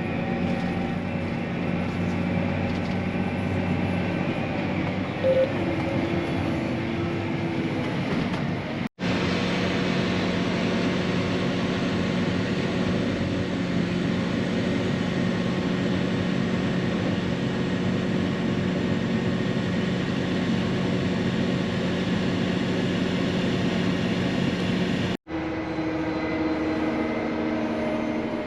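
Farm machinery engine running steadily with a continuous drone, broken off abruptly twice by brief gaps.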